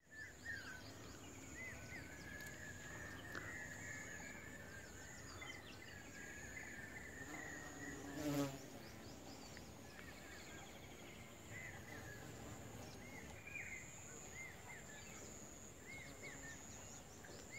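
Bees buzzing while foraging on a sunflower: first a carpenter bee, then a honey bee. Behind them are repeated small bird chirps and a steady high-pitched whine, and one short, louder call sounds about eight seconds in.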